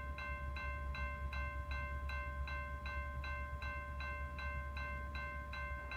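Railroad crossing bell dinging steadily, about two and a half strikes a second, each strike ringing on, over a low rumble.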